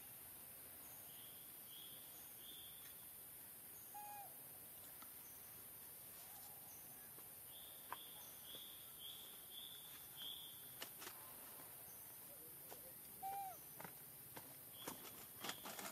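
Faint bird calls: a run of short high notes repeated about twice a second, heard twice, and now and then a single lower call. Several sharp clicks come near the end.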